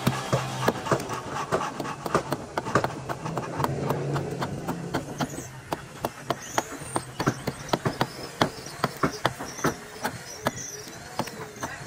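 Steel hammer striking a heavy wooden frame timber of a boat hull in a quick, steady run of blows, about three a second.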